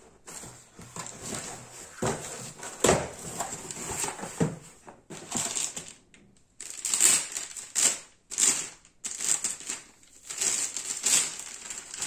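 Cardboard packaging inserts being handled: irregular scraping, rustling and light knocks in bursts with short pauses as the pieces are lifted and shifted and an accessory is pulled from the box.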